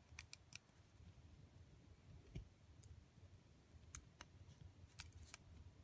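Faint, irregular small clicks of a diecast toy Jeep being handled as its body is separated from its base.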